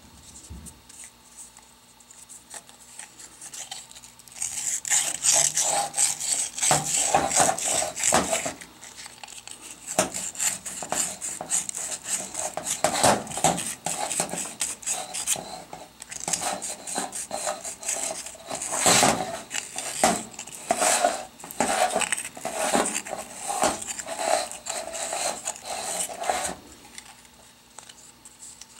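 Fine emery cloth rubbed hard inside the metal bore of a Hydro-Gear hydraulic pump housing where the shaft bearing sits, cleaning out debris: a scratchy scraping made of many quick strokes. It starts about four seconds in, breaks off briefly near nine seconds, and stops shortly before the end.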